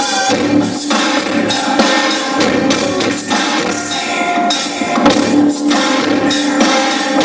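A full rock band playing industrial electronic rock live, with drums and guitar, loud and steady throughout.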